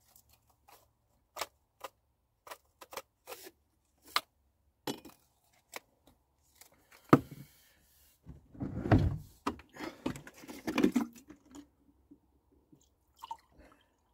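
Plastic tube of effervescent vitamin C tablets being opened and handled, with small clicks and rattles, and a sharp knock about seven seconds in. Then a run of thumps and rustling as a large plastic protein-powder tub is picked up and handled.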